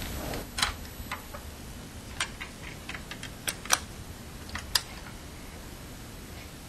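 A series of light, irregular plastic clicks and taps, about a dozen over five seconds: a disc being loaded into a player and its buttons pressed.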